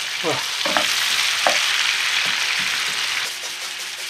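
Parboiled potato chunks sizzling in hot melted butter in a frying pan over high heat, stirred with a wooden spatula. The sizzle eases a little near the end.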